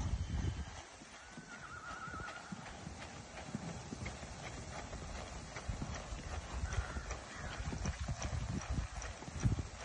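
Hoofbeats of a grey Andalusian stallion moving under a rider on arena sand, a steady run of dull thuds. A faint wavering whistle sounds about a second in.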